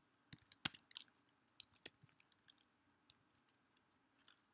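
Faint, irregular clicking of a computer keyboard and mouse as text is copied and pasted between programs, with the sharpest click just under a second in.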